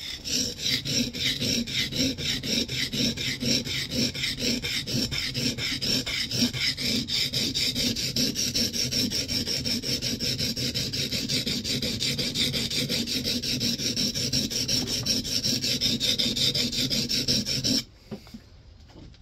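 Steel plane iron being rubbed back and forth on the coarse side of a Norton oilstone, a rapid, even rasping stroke after stroke that stops suddenly near the end. The cambered scrub-plane iron is being honed on the coarse grit to form its bevel and raise a wire edge.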